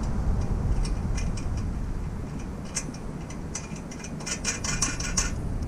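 Socket ratchet wrench clicking in short runs as a bolt is tightened, with a fast run of clicks about four seconds in.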